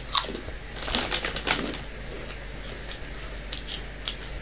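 Crisp crunching of chips being chewed: a run of sharp crackles in the first second and a half, then lighter scattered clicks.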